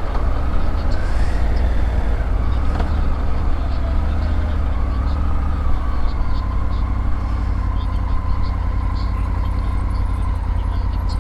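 Motorcycle engine running steadily at low revs, with a constant low rumble.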